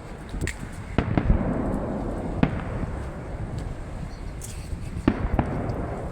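Fireworks display: a series of sharp bangs from bursting shells over a continuous low rumble, with a cluster of bangs about a second in and two more near the end.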